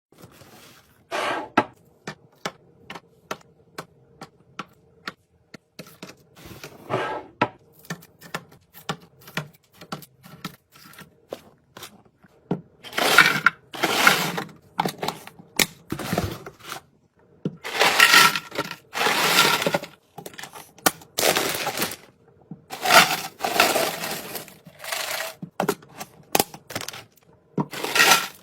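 Groceries and plastic containers being handled and set into a fridge: many sharp clicks, taps and clinks, with three longer noisy stretches of packaging handling lasting a second or two each.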